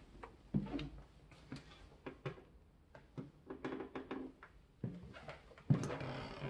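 Footsteps on a hardwood floor, irregular, with light knocks and thuds and a louder scuffing stretch near the end.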